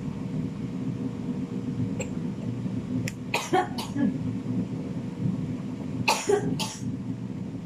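A woman sneezing: a few short, sharp sneezes about three seconds in and two more near six seconds, over a steady low hum.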